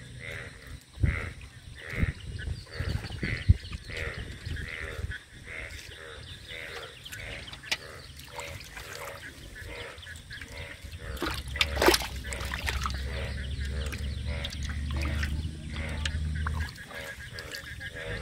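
Repeated honking animal calls, about two a second, over wet handling sounds in shallow water and grass. Several sharp splashes or knocks stand out, the loudest near 12 seconds in, and a low rumble runs from about 11 to 17 seconds.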